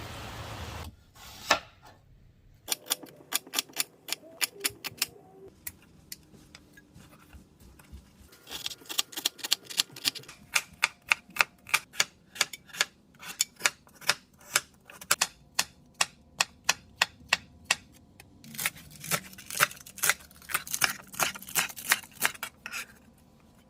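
A steady hiss that stops about a second in, then long runs of rapid, sharp taps, several a second, broken by short pauses.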